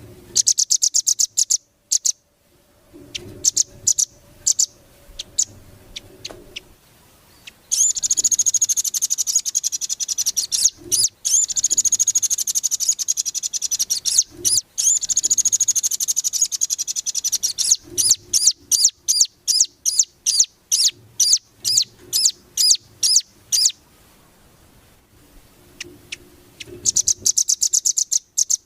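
Songbird masteran recording in the fast 'rambatan' style: high-pitched bursts of rapidly repeated notes, then a long unbroken trill for about ten seconds from roughly eight seconds in, then a quick run of short separate notes. The song returns in a dense burst near the end.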